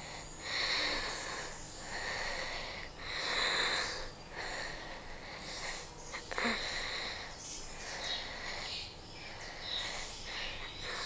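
A young woman's heavy breathing: long, drawn-out breaths a few seconds apart, with a single short click about halfway through.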